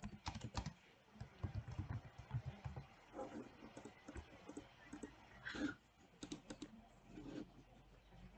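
Computer keyboard typing, faint and irregular, with scattered key and mouse clicks as a name is typed in.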